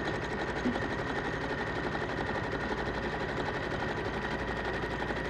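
Sewing machine stitching a seam at a steady fast speed: a rapid, even clatter of the needle with a steady motor whine.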